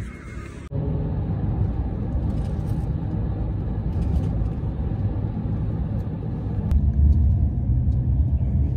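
Steady low road and engine rumble inside a moving van's cabin, starting suddenly about a second in. Near the end a deeper, heavier low rumble takes over.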